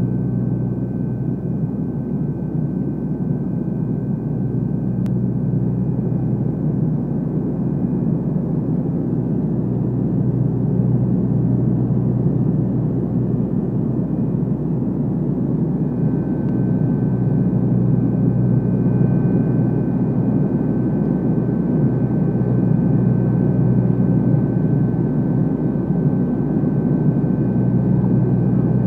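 Turboprop airliner's propellers and engines droning steadily, heard inside the passenger cabin: a strong low hum with faint steady high tones above it.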